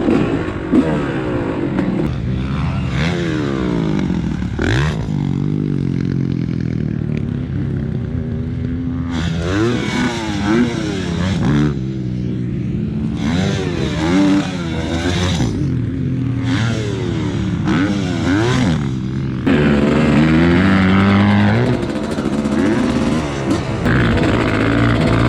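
Dirt bike engine revving hard, its pitch rising and falling over and over as it pulls through the gears, with stretches of rushing noise.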